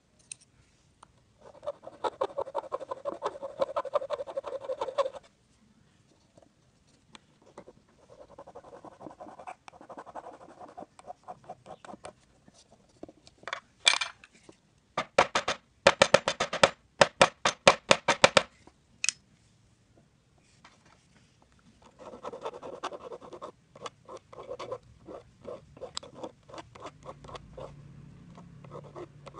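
Small metal file rasping back and forth across a fishing jig head clamped in pliers, in several runs of quick strokes with short pauses. The loudest run, about halfway through, goes at about four strokes a second.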